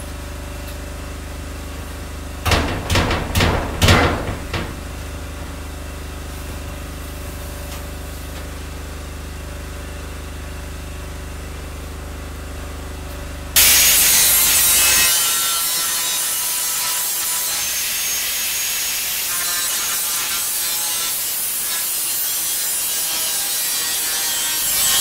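A steady low hum from a running generator, broken about 2.5 to 4.5 seconds in by a short run of loud metal knocks and clatter. About halfway through, an angle grinder starts abruptly and grinds steel steadily to the end, taking down the edges so the window frame fits the cut-out in the container wall.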